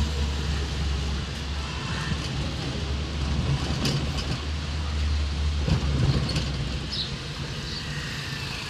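Road traffic: a steady low rumble of motor vehicles, with a few short knocks.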